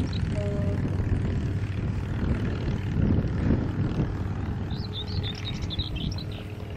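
Steady low rumble, with a small bird singing a quick, high twittering phrase about five seconds in.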